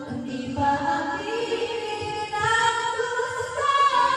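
Two women singing into karaoke microphones over a backing track, holding long notes.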